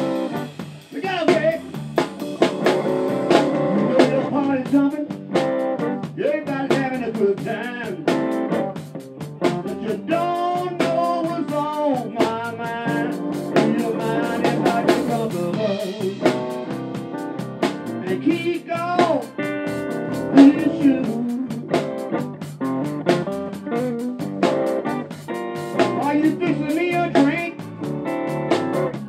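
Live blues band playing: electric guitar with bending notes over bass guitar and a drum kit keeping a steady beat.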